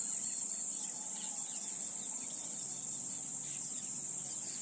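A chorus of insects trilling: one continuous, steady, high-pitched shrill that does not break.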